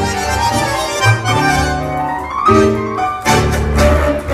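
Tango orquesta típica playing: massed bandoneons holding reed chords over violins, piano and double bass, with a strong bass line and several accented attacks.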